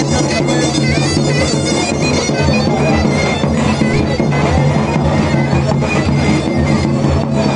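Zurna playing a fast, ornamented horon dance tune, with a davul beating a steady rhythm beneath it.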